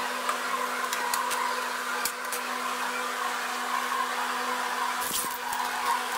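Steady motor hum with a hiss, with a few light clicks and a short rustle about five seconds in.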